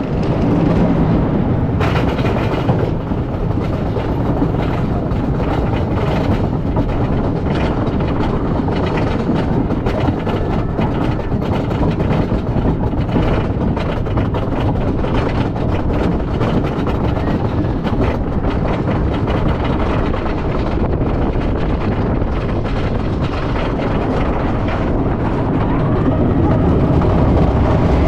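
GCI wooden roller coaster train hauled up the chain lift hill: a steady mechanical rumble of the lift chain, with rapid clicking, typical of the anti-rollback dogs on the lift. It grows a little louder near the end as the train crests the top.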